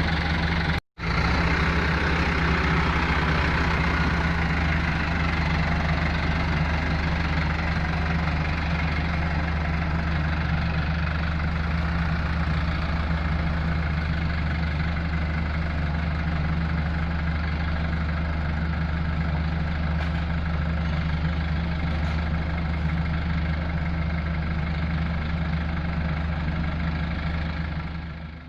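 Diesel engine of road-paving machinery running steadily at idle, with a brief break about a second in and fading out at the end.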